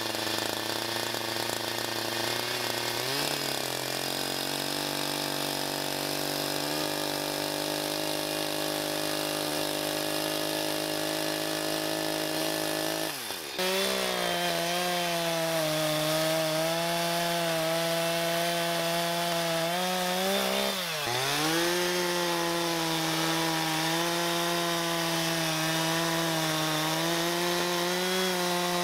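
Echo two-stroke chainsaw running at high speed, cutting through a large maple burl. Its pitch steps up a few seconds in, breaks off sharply for a moment about halfway through, and dips briefly then recovers about three-quarters of the way in.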